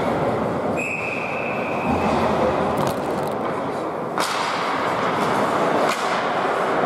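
Ice hockey game: a referee's whistle blows one steady blast of about a second and a half, starting about a second in, over constant arena noise. Then come sharp cracks of sticks and puck, the loudest about four seconds in.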